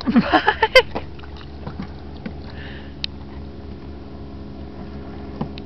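A motor's steady low hum, with a short vocal exclamation in the first second.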